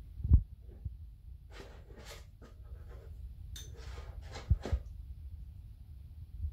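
Crafting handling noise: paper squares rustling as they are pressed onto a plastic milk bottle, and a glue spatula scraping in a small glass bowl of PVA glue, with a short clink about three and a half seconds in. Dull bumps on the table come near the start and again about four and a half seconds in.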